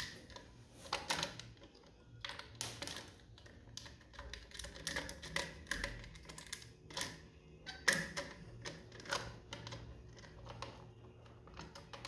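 Scattered light clicks and taps as bolts and the plastic fan cover over the flywheel are worked loose by hand and lifted off a Royal Alloy GT125 scooter engine.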